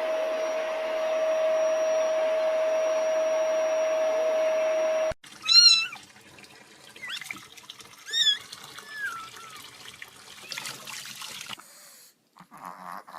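Water running steadily with a constant hum for about five seconds, cutting off abruptly. Then a cat meows loudly once, followed by a few quieter meows.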